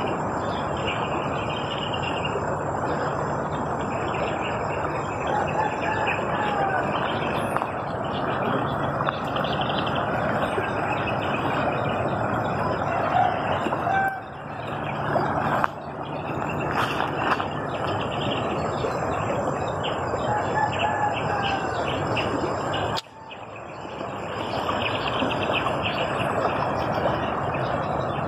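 Roosters crowing a few times, with birds chirping, over a steady rush of outdoor background noise that drops out briefly twice.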